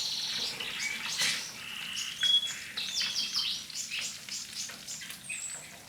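Small birds chirping and singing: a busy run of quick chirps, short whistles and trills, some gliding up or down in pitch.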